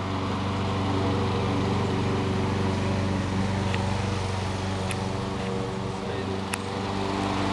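A steady, low mechanical hum, with a few faint sharp clicks about halfway through.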